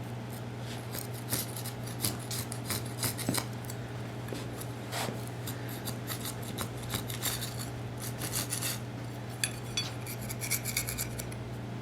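Grout being scraped out of the joints of a luxury vinyl tile floor with a hand tool: irregular rasping and scratching strokes, over a steady low hum.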